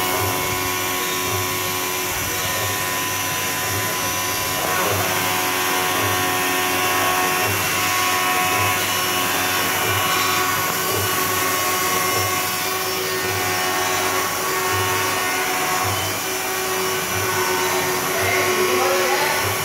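CNC profile machining center's spindle milling an aluminium extrusion: a steady, high, drill-like whine of the cutter with the noise of the cut.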